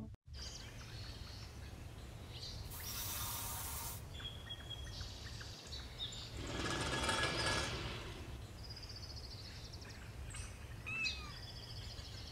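Woodland ambience: scattered bird chirps over a steady low rumble. A brief hiss comes about three seconds in, and a louder rushing swell comes around seven seconds.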